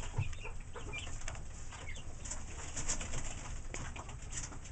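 Chickens settling on their roosts for the night, with soft low cooing murmurs and a few short high peeps in the first two seconds.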